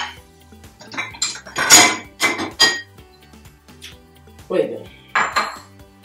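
Plates clinking and clattering against each other and the rack as they are lifted one by one out of an open dishwasher's lower rack, in several separate bursts.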